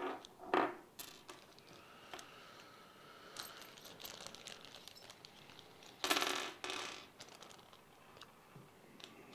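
Small metal speaker-mounting hardware clinking and rattling as it is handled and taken out of the box, in a few short bursts, the loudest about six seconds in.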